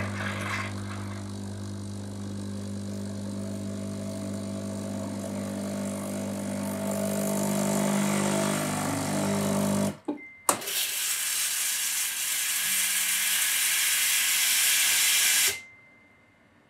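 Sage (Breville) Oracle Touch espresso machine purging its system on first use. The pump hums steadily for about ten seconds as hot water flushes through. After a brief pause, steam hisses out for about five seconds, then cuts off sharply near the end.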